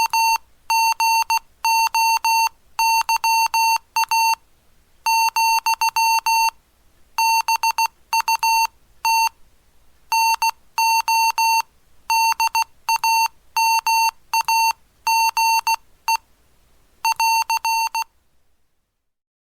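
Morse code (CW) sent as a keyed beep tone, short and long elements in groups of characters with word gaps, spelling out an amateur radio telegram message; the sending stops near the end.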